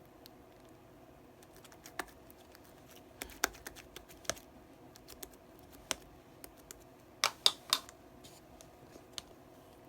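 Irregular sharp clicks and taps, scattered and uneven, with a quick run of three louder clicks about seven seconds in.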